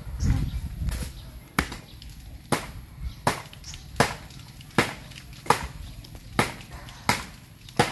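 A blade chopping at a coconut: about ten sharp, evenly spaced strokes, roughly one every three quarters of a second.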